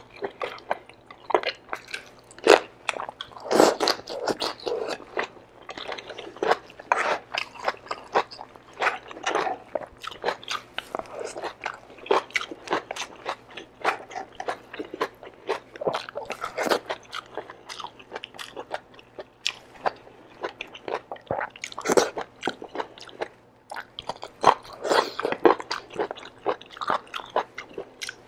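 Close-miked wet chewing and biting, with crisp crunches, as a person eats kare-kare (oxtail, beef shank and vegetables in peanut sauce) by hand. Irregular, fairly loud mouth clicks and crunches come several times a second.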